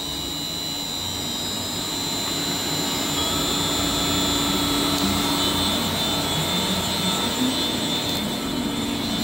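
Weiler Omni V220 grinder's electric drive motors and gearbox running, a steady hum under a high whine, growing a little louder over the first few seconds.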